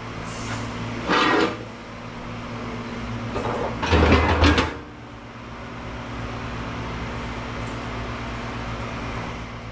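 Aluminum scrap pieces being handled and set down with a clatter: a brief one about a second in, then a heavier knock and rattle around four seconds in. A steady hum of an air conditioner runs underneath.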